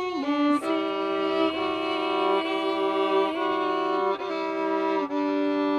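Solo violin playing long bowed notes in a slow melody, with a steady lower note held beneath for stretches.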